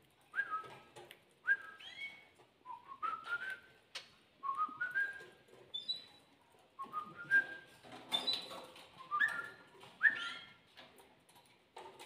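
Whistling to a pet cockatiel: a string of short whistled notes, each sliding up and then holding, about one a second.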